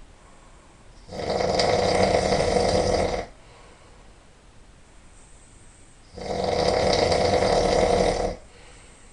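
A person snoring loudly: two long snores about five seconds apart, each lasting about two seconds, with quiet breathing between them.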